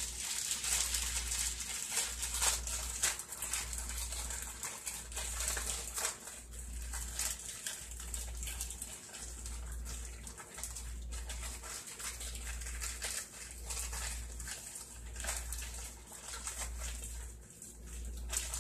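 A plastic zip-top bag of raw egg mixture being squeezed and kneaded by hand, crinkling and squishing, with a low throb repeating about once a second.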